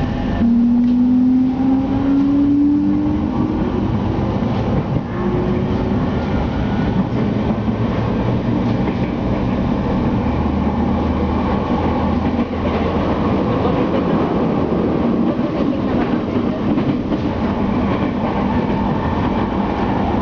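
Electric train pulling away: its motors give a rising whine over the first few seconds, then it settles into a steady rumble of wheels on rails, with faint rhythmic clicks, heard from inside the carriage.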